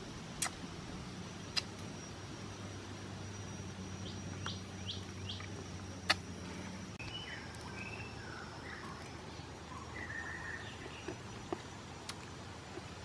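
Birds calling in the forest: a run of four quick rising chirps about four seconds in, then warbled calls, over a steady low hum, with a few sharp clicks.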